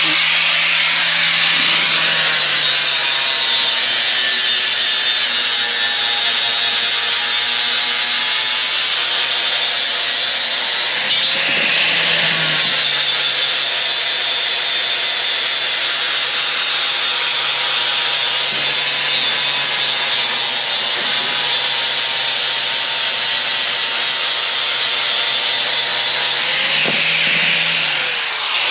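Handheld electric power tool running continuously under load, working on metal parts. Its motor pitch sags and recovers twice, about twelve seconds in and near the end.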